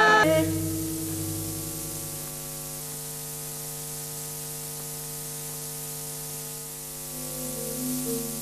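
Steady hiss with electrical mains hum after the singing stops, with faint music notes starting to come back in near the end.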